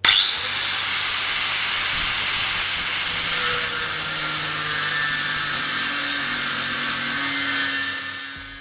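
Cutting disc of an angle grinder slicing a notch into a gear's metal shaft: a loud, high-pitched, steady grinding screech that starts suddenly and fades away over the last second.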